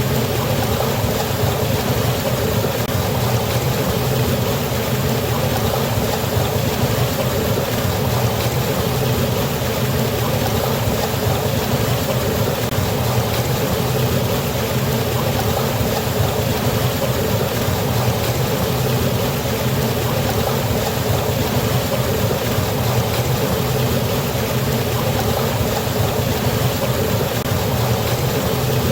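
Waterfall: a steady, unbroken rush of falling water, a deep rumble under a hiss.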